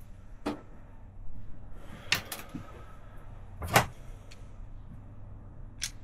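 Hand tool and wire handling with the automatic wire stripper: a few sharp clicks, the loudest a little under four seconds in, over a low steady hum.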